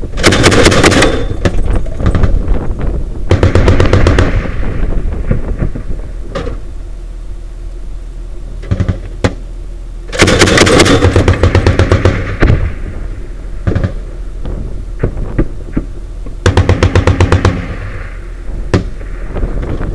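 MK-19 40 mm automatic grenade launcher firing in four bursts of rapid, evenly spaced reports: one at the start, one about three and a half seconds in, a longer one about ten seconds in and one near the end. Scattered single shots fall between the bursts.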